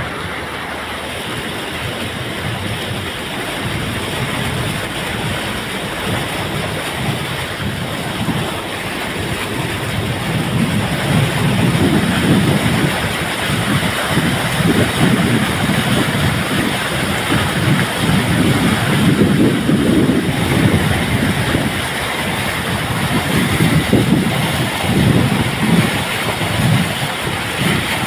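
Vehicle driving through floodwater on a road, its wheels throwing up spray: a continuous rushing, splashing noise with gusty low rumbling, getting louder about ten seconds in.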